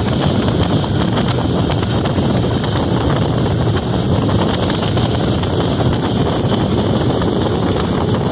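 Boat under way: a steady rush of wind buffeting the microphone, with the boat's motor and water noise underneath.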